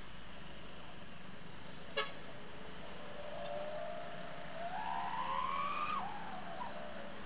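Steady motorcycle and road noise in slow city traffic, with a single click about two seconds in. From about three seconds a wailing tone rises steadily for about three seconds, then drops sharply.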